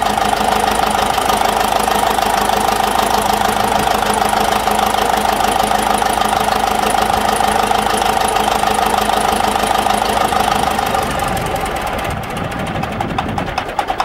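A long-laid-up Caterpillar D7 bulldozer's diesel engine runs steadily, brought back to life after new fuel lines and batteries. About twelve seconds in, the sound drops a little and settles into a slower, evenly pulsing beat.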